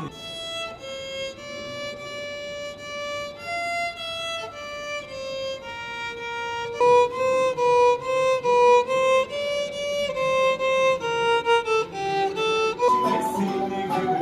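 Solo violin playing a slow melody of held, bowed notes, getting louder about halfway through.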